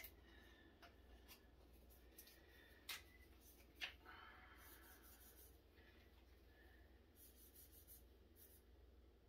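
Faint scratching of a marker pen writing on a white plastic plant label in short strokes, with two small clicks about three and four seconds in.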